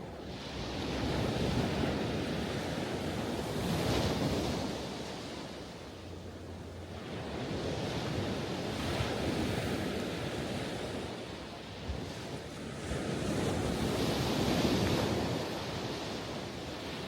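Ocean waves breaking and washing on the shore, the surf rising and falling in slow surges every few seconds.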